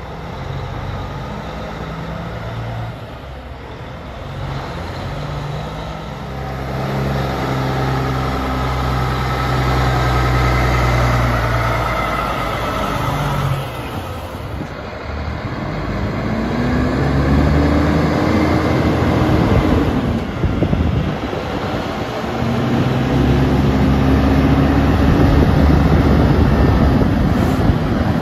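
Diesel engines of heavy loaded log trucks. A steady engine note grows louder over the first dozen seconds, then the revs rise twice in long climbs of several seconds, each dropping off at the top, as a truck pulls away under load.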